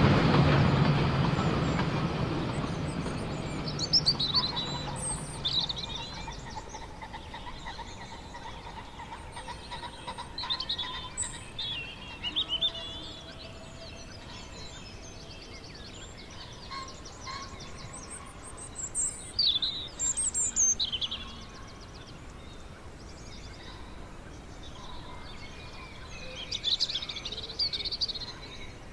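Birds singing in short, scattered bursts of high chirps, with quiet gaps between them. At the start a train's low rumble fades away over the first few seconds.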